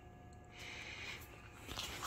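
Faint rustling handling noise, a soft hiss lasting under a second, then a few light clicks near the end.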